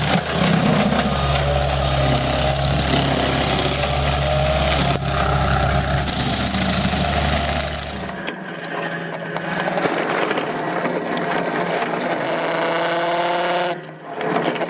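Heavy machinery running loudly with a high whine, cutting abruptly about eight seconds in to a different machine whose engine hum rises slowly in pitch.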